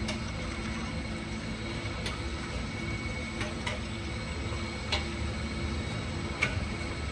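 Scattered sharp metallic clicks, about five over several seconds with the loudest near the end, from tools and exhaust hardware being worked while parts are loosened and taken off. A steady low hum runs underneath.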